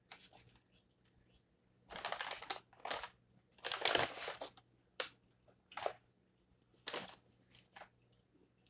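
McDonald's paper takeout bag rustling and crinkling in a string of short bursts, loudest about four seconds in, as a hand rummages inside it.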